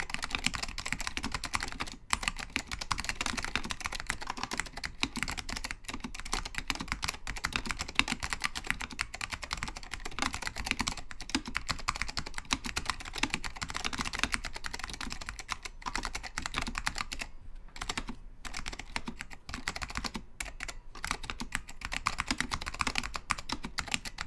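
Continuous fast typing on a custom 60% mechanical keyboard with tactile Alps Orange switches and thick PBT keycaps over a 5 mm acrylic plate: a dense run of keystroke clacks, broken by a few short pauses, about two seconds in and again in the second half.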